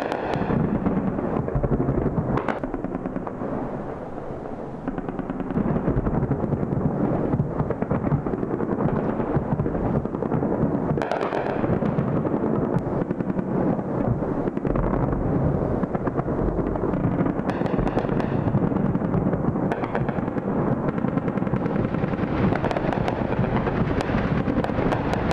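Anti-aircraft guns firing in a sustained barrage: a dense, continuous rattle of many overlapping shots, easing briefly about four seconds in.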